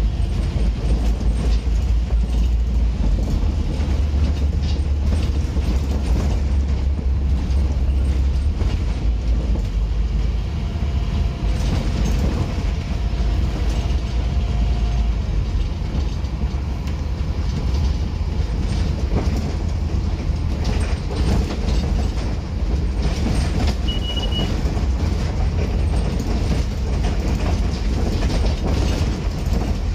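Scania N230UD Omnicity double-decker bus under way, heard from the upper deck: the low, steady rumble of its rear-mounted five-cylinder diesel with constant rattling from the body and fittings. A short high beep sounds once, late on.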